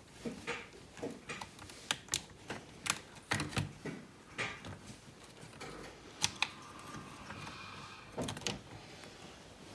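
Irregular clicks and light knocks of a plastic laptop casing being handled and fitted back into place, busiest in the first half, with one sharper click a little past the middle.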